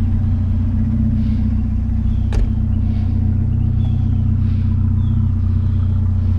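A vehicle's engine and road noise as it drives along at a steady pace, a continuous low drone. A single sharp click about two and a half seconds in.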